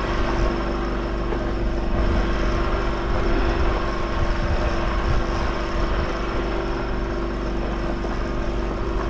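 An engine running steadily, an even hum with a constant pitch over a broad noisy drone.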